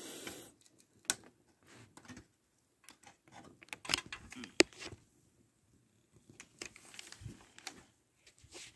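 Faint handling noise of a monitor and its cable being worked by hand: scattered light clicks, taps and rubbing, with quiet gaps between.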